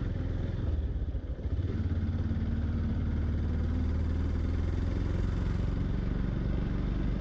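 Yamaha FZ-X's 149 cc single-cylinder engine running steadily under way, a low even sound with a brief dip about a second in.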